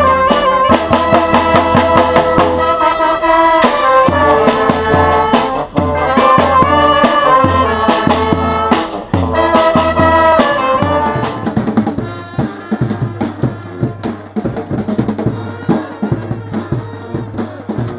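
Street brass band playing: horn lines over snare and bass drum. About twelve seconds in, the horns stop and the drums carry on alone, quieter.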